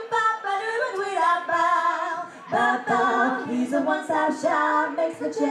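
Women singing together in harmony, unaccompanied, with a short break about two seconds in.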